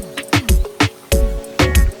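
Background music with a steady beat: an Afrobeat-style track with heavy kick drums, sharp percussion and sliding bass notes.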